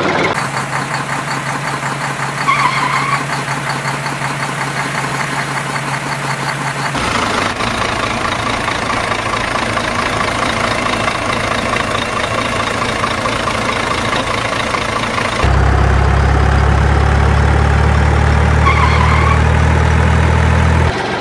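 Truck engine sound effect running steadily. It switches abruptly to a different engine recording about seven seconds in and again about fifteen seconds in; the last one is louder, with a deeper rumble.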